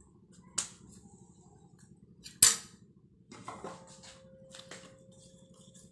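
Kitchen utensils knocking on a steel plate: two sharp clicks, the second louder, about two seconds apart. These are followed by soft tapping and handling sounds as a ball of spinach dough is pressed flat on a wooden rolling board.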